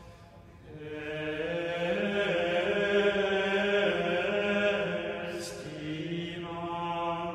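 A man's voice chanting a slow liturgical chant from a televised Mass, holding sung notes that step up and down.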